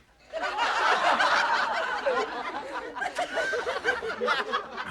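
Sitcom studio audience laughing, starting suddenly about a third of a second in and loudest over the first two seconds, then carrying on more unevenly.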